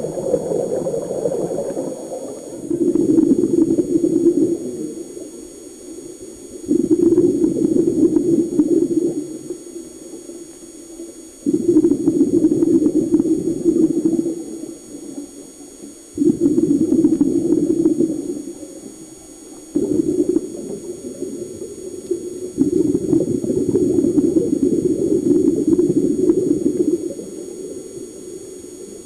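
Scuba diver breathing through a regulator underwater: a burst of exhaled bubbles every four to five seconds, each coming in suddenly and fading over two or three seconds.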